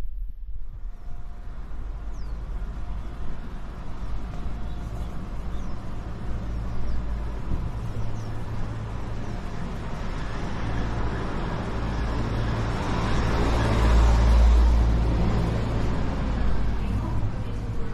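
Street traffic noise with a steady low rumble, swelling as a vehicle passes, loudest about fourteen seconds in.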